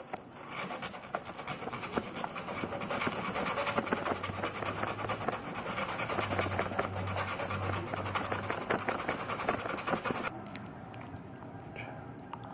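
Sanding: a steady rasping hiss of rapid scraping strokes, stopping about ten seconds in.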